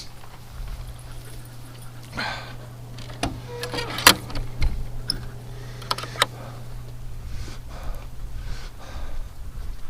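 Metal clinks and rattles of a door latch being fastened, several sharp clicks between about three and six seconds in, over a steady low hum.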